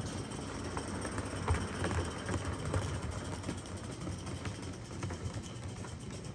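Small live-steam model tank locomotive running along the track with a train of coal wagons: a steady mechanical running sound with faint clicks of wheels on the rails.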